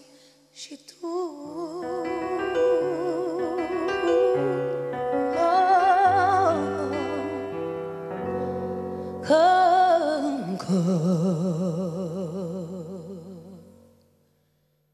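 A live ballad's closing phrase: a woman's voice with a wide vibrato holding long notes over keyboard chords and bass, dying away to silence about a second before the end.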